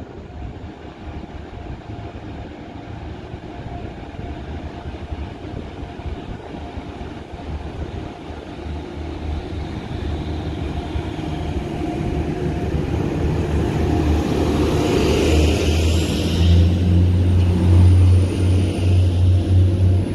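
Class 175 diesel multiple unit drawing into the platform, its underfloor Cummins diesel engines throbbing louder and deeper as the front nears. A brief hiss comes about three-quarters of the way through, and a thin high whine starts near the end.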